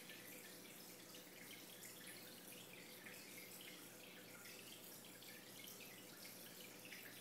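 Near silence: faint trickling and dripping of aquarium water over a low steady hum.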